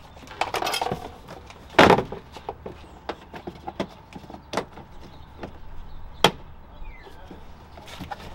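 Hard plastic rear cargo side trim panel of a Toyota Matrix being pulled and worked loose from its clips: scattered clicks, knocks and rattles. There is one loud clack about two seconds in and a sharp snap about six seconds in.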